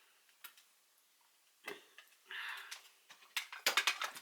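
Small clicks and taps from handling a makeup brush and eyeshadow palette, with a short soft brushing swish about halfway and a quick run of clicks near the end.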